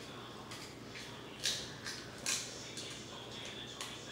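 King crab leg shell crackling and snapping as meat is picked out of it with a small fork: a few short, sharp crackles, three louder ones in the middle.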